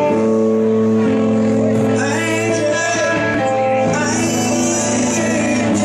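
Rock band playing live: electric guitars and bass holding chords, with a male voice singing over them.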